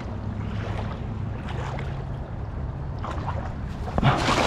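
Cast net landing on shallow water: a short splash about four seconds in, over a steady low hum.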